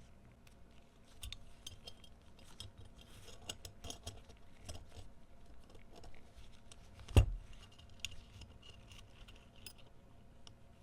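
Small metal parts clicking and clinking as they are handled, with one sharp knock about seven seconds in.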